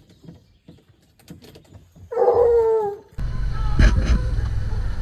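A hunting hound bays once, a drawn-out bawl lasting about a second, roughly two seconds in. Just after three seconds a steady low rumble starts abruptly and is the loudest sound.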